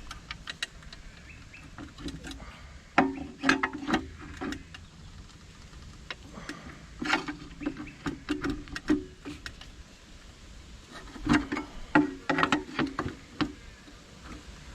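Hand tools clicking, knocking and scraping against the metal cutter disc and housing of a Rover Muncher garden mulcher, in three bursts of work with short pauses between.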